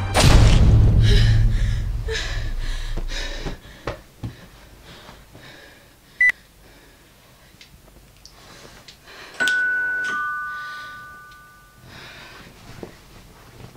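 A deep boom at the start that rumbles away over about three seconds, then a single short beep, and about nine and a half seconds in a two-note ding-dong doorbell chime, the second note lower, fading away over a couple of seconds.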